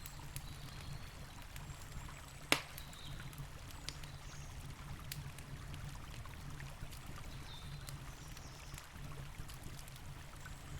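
Campfire wood crackling with scattered sharp pops, one much louder pop about two and a half seconds in, over the steady low rush of a flowing river.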